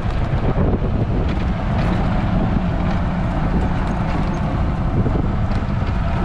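Gas-engined golf cart running steadily as it drives along, with wind buffeting the microphone.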